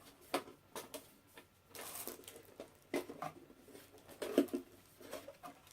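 Items being rummaged through and handled in an unboxing box: scattered light clicks, knocks and short rustles at irregular times.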